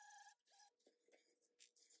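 Small cordless rotary tool with a sanding pad, briefly spun up with a whine against a metal bag-frame strip, followed by a few fainter scuffing sounds.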